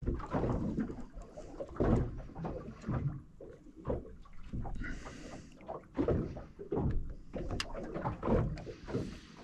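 Small waves lapping and slapping against the hull of a small boat at rest, in irregular knocks and splashes.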